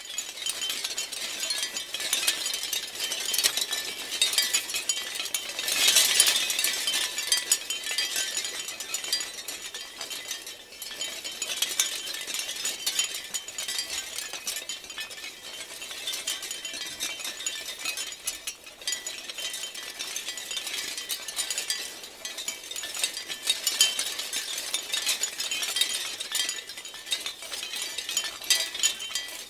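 Shell wind chimes clinking and rattling together in the wind: a dense, bright tinkle that swells and eases in gusts, loudest about six seconds in.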